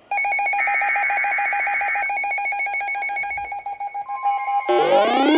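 Electronic emergency-alert tones: a steady, rapidly pulsing beep, with a short warbling burst of digital data over it about half a second in. Rising electronic sweeps begin near the end.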